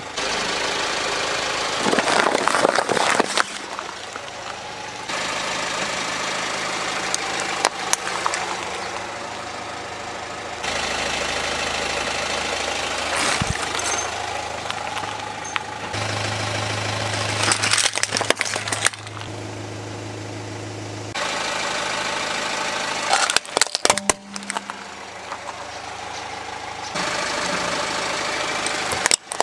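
Car engine idling while a tyre rolls slowly over plastic toys, with short clusters of sharp cracking and crunching several times as they break under the wheel. The engine hum jumps abruptly in level and tone every few seconds.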